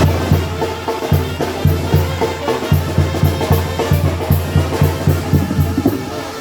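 Sinaloan banda (tambora) music playing, led by a steady beat of bass-drum hits about three a second with crisp cymbal strikes on top.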